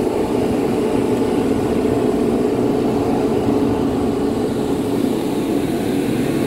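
Heavy ship's machinery running with a steady low drone.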